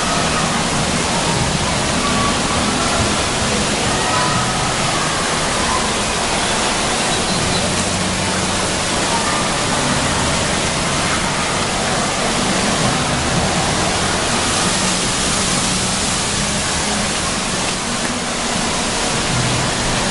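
Steady, loud rush of water pouring and spraying from the fountains and jets of a children's water-park splash area.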